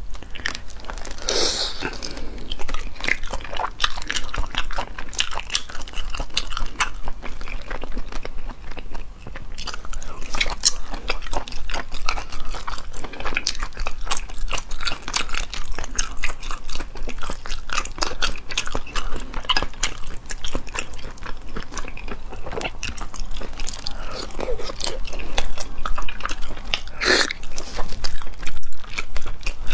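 Close-miked eating of spicy sea snails in chili sauce: snail shells clicking and cracking as they are pulled apart by hand, mixed with chewing and wet mouth sounds. Two louder, longer sounds stand out, about a second in and near the end.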